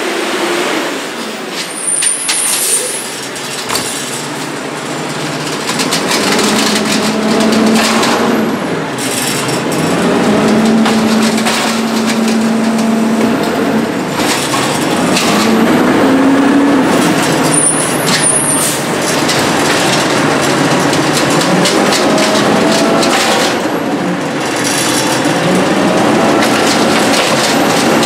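Diesel garbage truck, a Condor with an Amrep HX-450 automated side loader, running and revving as it pulls up and lifts a cart with its arm. Its engine pitch rises and falls, and there are short air-brake hisses about two seconds in and again past halfway.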